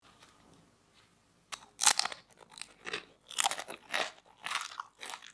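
A crisp fried waffle-cut potato chip is bitten with a sharp snap and crunch, then chewed in a run of repeated crunches. The first second and a half is faint.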